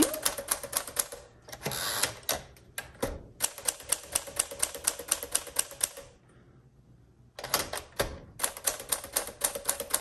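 1952 Smith Corona Sterling manual portable typewriter being typed on: key strikes clacking in quick runs of about five a second, broken by short pauses and by carriage returns as new lines begin.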